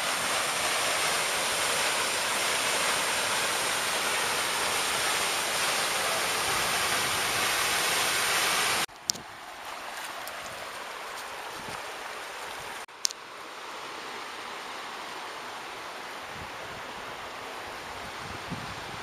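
Waterfall pouring steadily into a pool, a full rushing sound for about nine seconds. After an abrupt cut with a short click, a quieter steady rush of a shallow creek running over rocks, with another short click at a second cut about thirteen seconds in.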